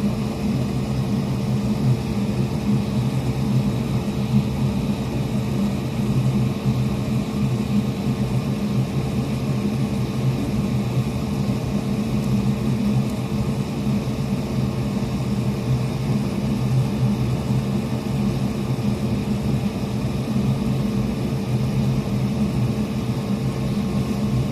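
Steady electric fan whir, an even drone with a low hum and a few fixed tones, unchanging throughout.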